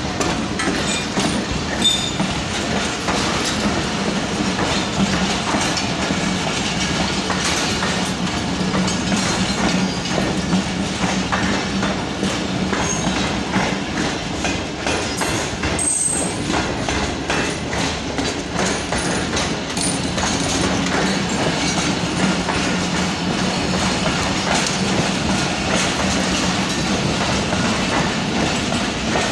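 Pakistan Railways passenger coaches rolling past on the adjacent track: a steady rumble with a continuous clickety-clack of wheels over the rail joints.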